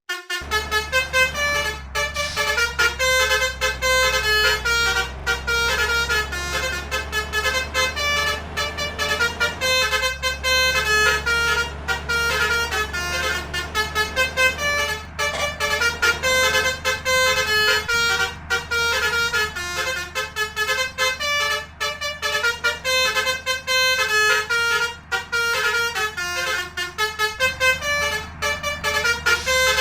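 Basuri multi-tone 'telolet' horns playing a fast melody of short stepped notes, over a steady low engine hum.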